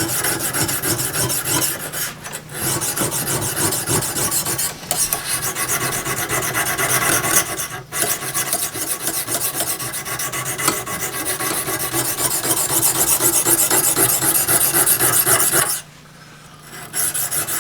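Lansky sharpening hone being stroked back and forth along the bevel of a steel saw blade: a continuous gritty rasp of stone on steel, with a few short breaks and a pause of about a second near the end. This is the stone grinding the edge bevel, working toward a burr.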